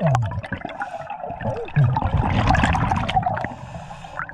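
Underwater gurgling of a scuba diver's exhaled bubbles leaving the regulator, swelling into a long burst about two seconds in and easing off near the end.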